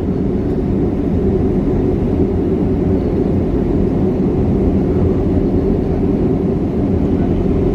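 Cabin noise of a Boeing 737-300 taxiing, heard from a seat over the wing: a steady low rumble from its CFM56-3 turbofan engines and the rolling airframe.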